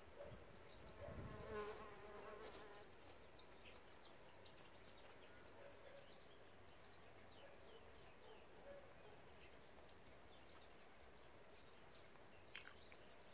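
A bee flies past buzzing, its hum wavering in pitch for a second or two starting about a second in. After that it is faint, with small birds chirping now and then.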